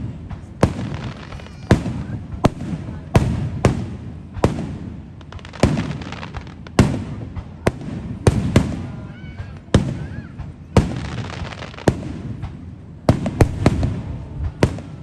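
Aerial fireworks shells bursting in quick succession, sharp bangs about once a second with a few close together near the end, each trailing off in a low rumble over steady crackling.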